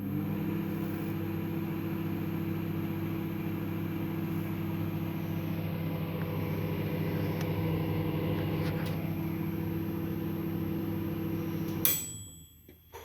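BGH microwave oven running with a steady hum. Near the end it stops with a click, followed by a short high beep.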